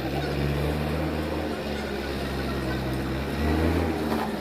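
JCB 3DX backhoe loader's diesel engine running, its pitch and load shifting slightly and growing louder about three seconds in.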